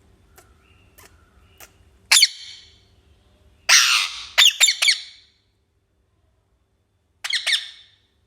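Pet parrot squawking in loud, sharp calls: one about two seconds in, a harsh screech running into a quick string of short calls around the middle, and another brief cluster of calls near the end.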